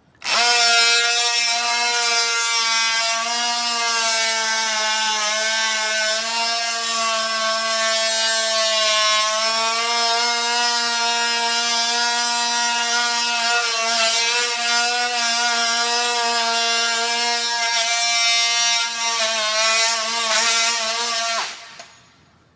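Oscillating multi-tool with a plunge blade cutting a groove through glued-down hardwood floorboards along the seam between planks. It starts about half a second in, runs with a steady buzz that wavers slightly as it bites into the wood, and cuts off about a second before the end.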